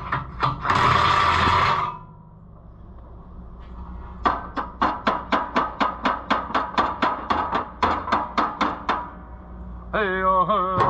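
A rapid run of about twenty hammer blows, roughly four a second, each with a short metallic ring, beating a tractor tire onto its rim. Before the blows there is a loud burst of hiss lasting about a second.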